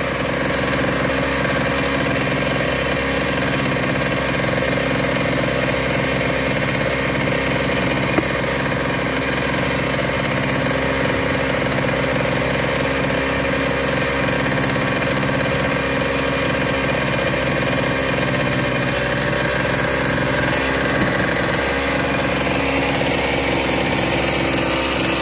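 Engine on a small fishing boat running steadily, a constant drone with a hum. A single sharp click about eight seconds in.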